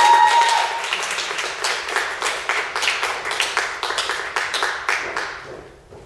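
Audience applauding, the clapping thinning out and fading near the end. Over the first second someone's whoop rises in pitch and is held briefly.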